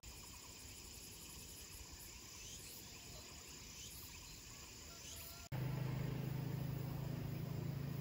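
Quiet outdoor ambience with faint, thin insect chirps over a soft hiss. About five and a half seconds in, it cuts abruptly to a louder, steady low hum.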